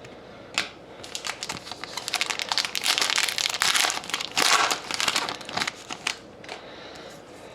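A trading card pack wrapper being crinkled and torn open, a dense run of crackling and rustling. It is loudest in the middle and dies down after about six seconds.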